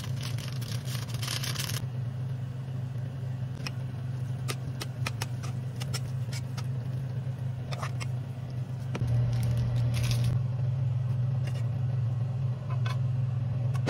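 Chopsticks clicking and scraping against a metal pot as noodles are mixed, over a steady low hum that gets louder about nine seconds in. A sauce packet is squeezed and rustles at the start.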